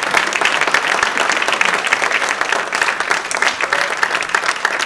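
An audience applauding steadily, a dense patter of many hands clapping, in response to an award winner being announced.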